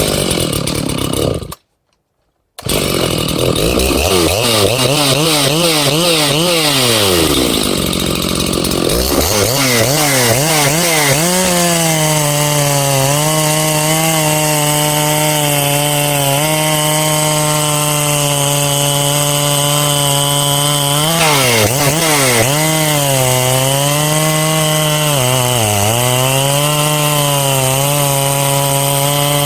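Big-bore-kitted Makita (Dolmar) 7900 chainsaw blipped up and down a few times, then held at full throttle cutting through pine. Its pitch sags briefly twice in the second half as the chain loads up in the cut.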